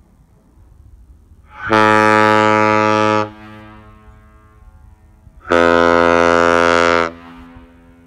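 Airchime KM85 and KM110 ship horns, bronze power chambers, blown on compressed air. They give two steady blasts of about a second and a half each, a couple of seconds apart, and the second blast is deeper than the first.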